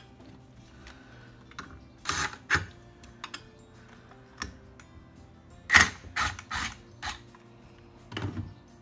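Several short bursts of a cordless power driver tightening screws on the heads of a Thomas aerator pump, over quiet background music.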